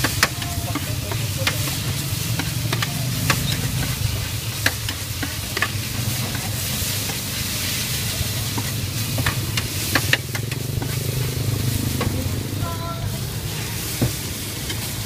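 Noodles and bean sprouts sizzling on a large round flat griddle pan while a metal spatula scrapes and clacks against the pan as they are stir-fried, with irregular sharp knocks over a steady sizzle.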